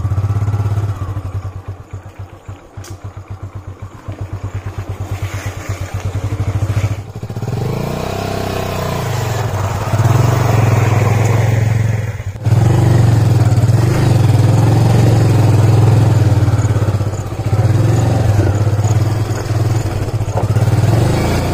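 Hero motorcycle engine running: a low pulsing idle at first, then revving hard with rises and falls about seven seconds in, as the bike pushes through a shallow stream and mud.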